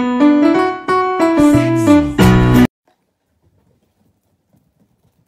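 Background music: a quick rising run of keyboard-like notes ending on a held chord that cuts off suddenly about halfway through, then near silence with a few faint ticks.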